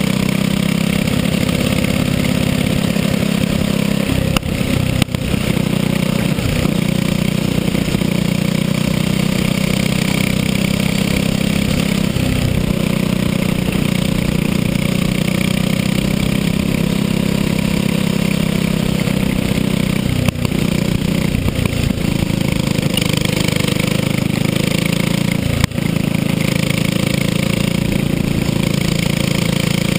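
Racing kart's small engine running hard at lap speed, heard onboard, a steady loud drone with a few brief dips in level.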